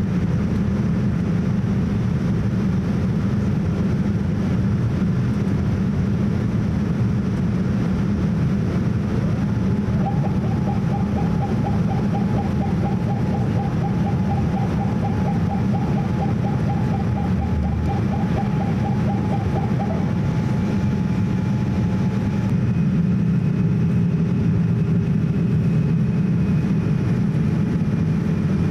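Cabin noise of a Boeing 787-8 in its climb after takeoff: the steady roar of its General Electric GEnx engines and the airflow. A faint warbling whine comes in about ten seconds in, holds steady, then stops about two-thirds of the way through, and a fainter, higher tone follows.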